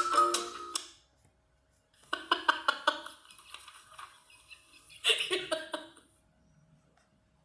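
A woman laughing in three separate bouts: one fading out about a second in, a longer one of quick pulsed 'ha-ha' bursts from about two to four seconds in, and a short one about five seconds in.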